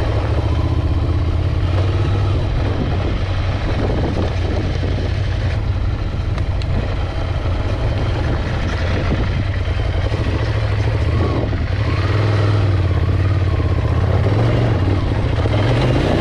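Scrambler Ducati motorcycle's air-cooled L-twin engine running steadily while being ridden off road, its pitch shifting a little with the throttle.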